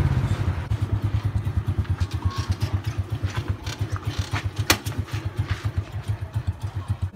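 Small motorbike engine running slowly in an even, fast putter as the bike rolls in and idles. One sharp click comes a little past the middle.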